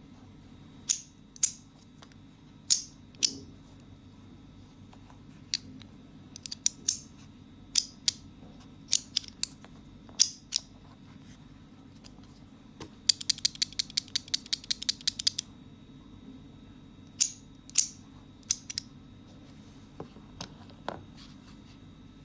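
Metal poker-card push slider fidget toy: sharp metallic clicks as its magnetic layered plates are pushed and snap into place, singly and in quick pairs, with a rapid run of about a dozen clicks a little past the middle.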